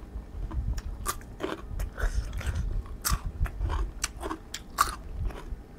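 A person chewing raw crunchy vegetables close to the microphone, crisp crunches about twice a second.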